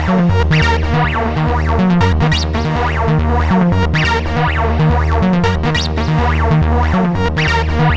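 Psychedelic trance track: a driving, repeating synth bassline under layered synthesizer patterns.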